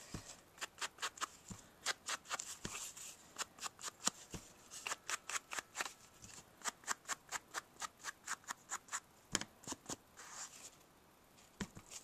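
Foam ink applicator on a wooden block rubbed in quick strokes along the edges of a paper card to distress them: a run of short, scratchy swishes, a few a second, with a brief pause near the end.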